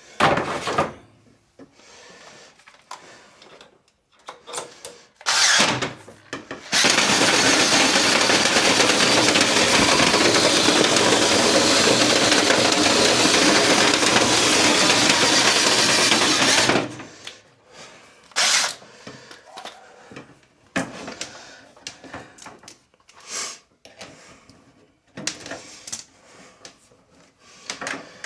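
Power drill running steadily for about ten seconds, spinning a dryer-vent cleaning brush through the vent pipe to break loose packed lint, then cutting off. Scattered knocks and clatters of the rods and pipe come before and after.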